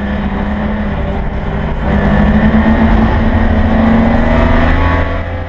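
Straight-piped BMW E30 325is straight-six racing engine running hard, heard from inside the cockpit: a loud, steady engine note that climbs in pitch and level about two seconds in, then fades near the end.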